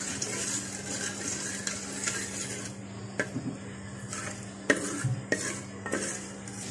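Wooden spatula stirring and scraping cumin seeds through oil in a metal pot, with a light sizzle from the seeds in the heating oil. A few sharp knocks of the spatula against the pot come in the second half.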